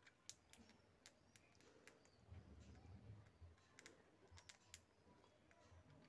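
Near silence broken by faint, irregular light clicks and taps, from budgerigars moving about a wire cage and working at it with their beaks, with a faint low rumble of handling around the middle.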